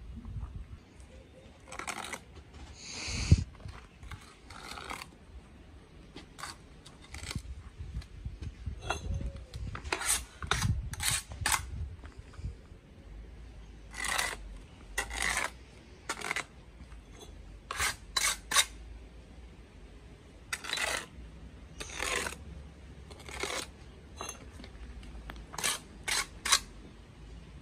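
Steel brick trowel working mortar and concrete blocks as they are laid: scrapes of the blade through mortar and sharp clinks and taps of steel on block, coming irregularly, with a longer scrape about three seconds in.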